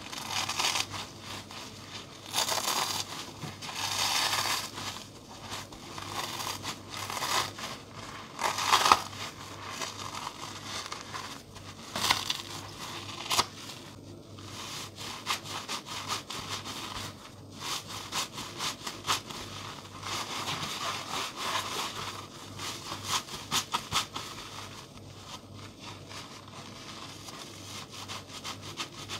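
Gloved hands slowly ripping crispy sponges apart: crackling, crunchy tearing in irregular bursts, with a fast run of tiny crackles about two thirds of the way through. Near the end a soapy sponge is squeezed and torn.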